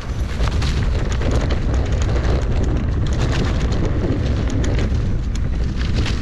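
Mountain bike riding down a dirt trail: a steady rumble of wind on the microphone, with the tyres and frame rattling and clicking over the rough ground many times a second.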